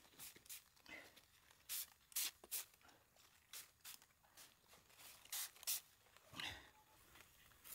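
Hand trigger spray bottle squirting onto cabbage leaves: a string of faint, short hissing spurts, often two in quick succession.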